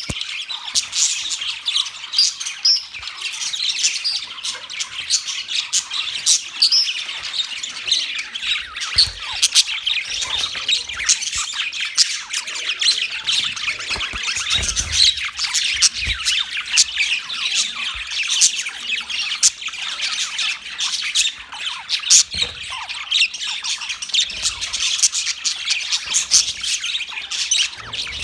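A group of budgerigars chirping and squawking continuously, many short overlapping calls with no pauses.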